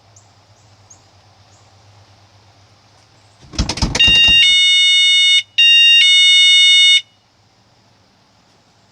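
Cheap hang-on door alarm triggered: a brief rattle, then a loud, piercing electronic alarm tone that switches between two pitches. It breaks off briefly about halfway through and cuts off after about three seconds.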